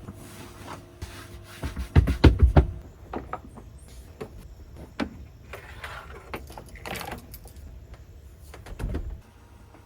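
Knocks, clunks and rustles of things being handled and moved about inside a camper van, with a cluster of heavy thumps about two seconds in and more knocks later on.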